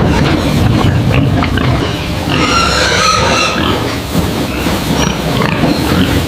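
A crowd of pigs grunting, with one pig squealing for about a second near the middle.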